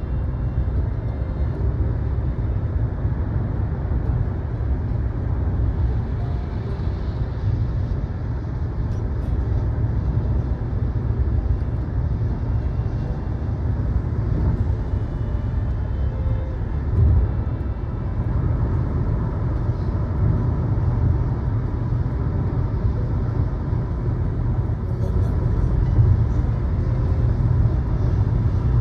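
Steady low rumble of a vehicle in motion, with no clear breaks or changes.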